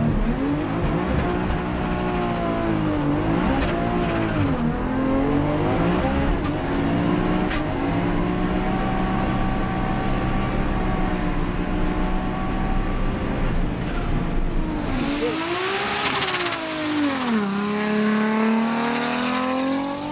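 Nissan S13 drag car's engine at full throttle down the strip, heard first from inside the cabin: its pitch dips about four seconds in, then climbs slowly. Near the end it is heard from outside, its pitch rising and falling steeply, then climbing again.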